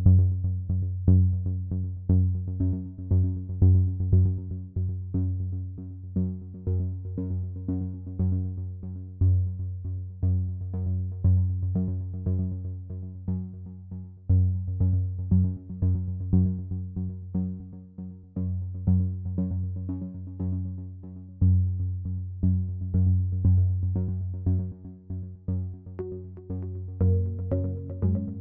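Electronic background music: synthesizer notes over a heavy bass line with a steady, even beat.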